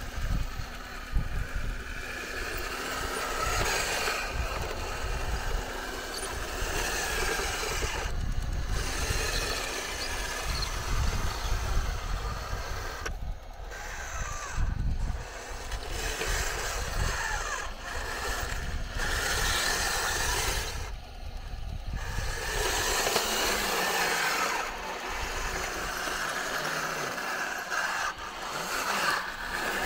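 Radio-controlled Tiger I model tank driving over loose garden soil: the whine of its electric drive motors and gearboxes with its tracks clattering, rising and falling as it moves and turns.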